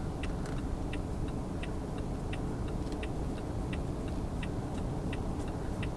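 Car turn-signal indicator clicking steadily, about three ticks a second, over the low rumble of the car running.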